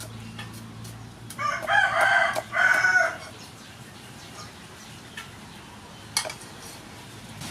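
A loud, drawn-out animal call lasting about two seconds, in two parts, a little over a second in, over scattered light clicks and a sharp click near the end.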